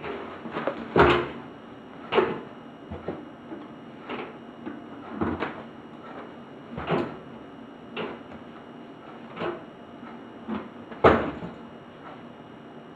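Laundry being handled by hand inside a tumble dryer's metal drum: irregular knocks and bumps about once a second as items and hands hit the drum and door rim, over fabric rustling. The two loudest knocks come about a second in and near the end.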